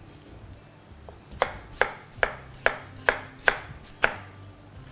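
Kitchen knife slicing a peeled potato into rounds on a plastic cutting board. After a pause of about a second and a half, the blade knocks sharply on the board seven times, roughly two to three a second.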